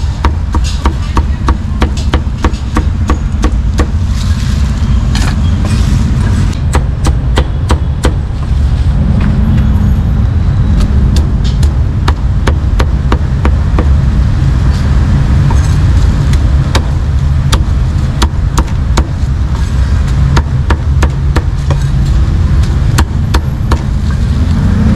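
Meat cleaver chopping roast meat on a chopping block: rapid, irregular sharp chops, several a second and faster in short runs. A steady low rumble lies underneath.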